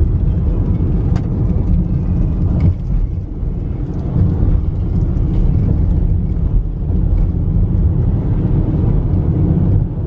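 Car driving along, its engine and tyre noise heard from inside the cabin as a steady low rumble, with a few light clicks.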